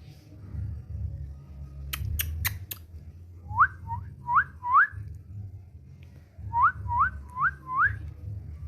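Indian ringneck parrot whistling: two runs of short rising whistles, three and then four, preceded by four sharp clicks about two seconds in, over a low steady rumble.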